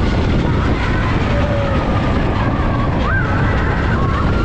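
Expedition Everest roller coaster train running on its track, heard on board: a loud, steady low rumble with wind on the microphone and a few thin, wavering high tones over it.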